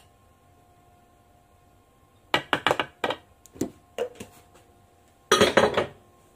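Kitchen containers being handled: a quick run of sharp knocks and clacks starting a couple of seconds in, then a louder, denser clatter lasting about half a second near the end.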